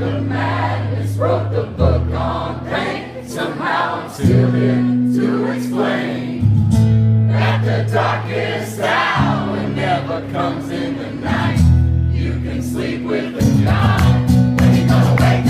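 Live acoustic rock performance: strummed acoustic guitar with low chord notes changing every couple of seconds, under singing.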